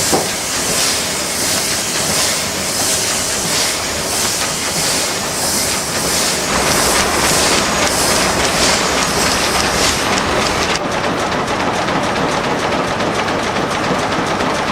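Twin-cylinder steam engine of 1906 running, with a rhythmic hiss of steam about one and a half times a second over a dense mechanical clatter. About two-thirds of the way through the hissing drops away and the lower machinery noise goes on.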